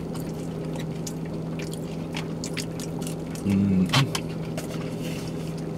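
Eating in a car cabin: a plastic fork clicking and scraping in a plastic bowl, and chewing, over the car's steady hum. A short hummed voice sound comes about three and a half seconds in.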